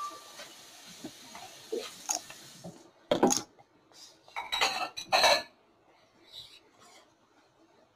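Small objects clinking and knocking on a glass tabletop: a few sharp knocks about three seconds in, then a quick cluster of clinks a second or so later.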